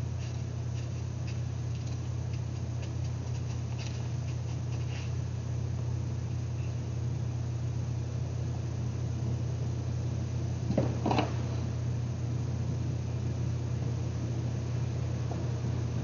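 A steady low machine hum, like a fan or motor, runs throughout. Faint small taps and scrapes of hands working soft clay slabs come in the first few seconds, and a short rustling sound comes about eleven seconds in.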